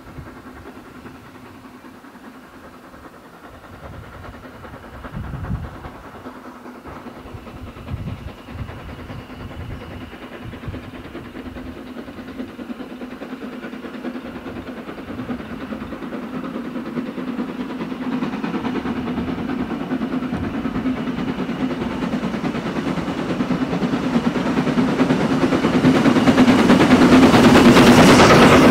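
Hunslet Austerity 0-6-0 saddle tank steam locomotive working a passenger train under steam, growing steadily louder as it approaches and loudest as it passes close by near the end.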